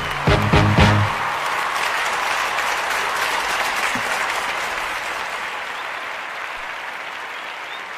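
Audience applauding, a steady clapping that slowly fades, after a burst of music ends about a second in.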